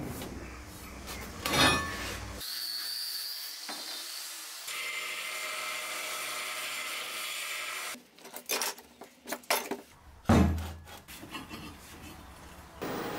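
Metalworking sounds in quick succession: a knock as a steel plate is handled, then a belt grinder grinding a steel piece with a steady hiss for several seconds, then a run of sharp metal clinks and a heavy thud as steel plates are set together.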